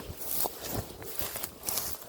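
Footsteps through dry undergrowth at a walking pace, about two steps a second, each with a dull thud and the rustle and crunch of brush and dead fern underfoot.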